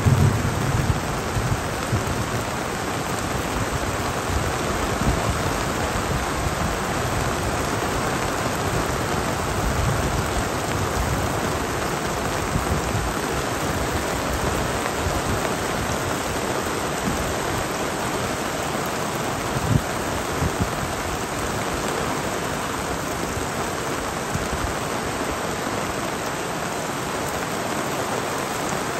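Heavy rain of a thunderstorm falling steadily, a dense even hiss, with water dripping off a roof eave. A low rumble of distant thunder comes through near the start and again around ten seconds in, and a couple of sharp drip taps land about twenty seconds in.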